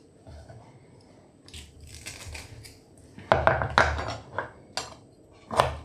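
A metal garlic press crushing a peeled garlic clove, with a loud crunching squeeze about halfway through. A couple of short sharp clicks follow near the end.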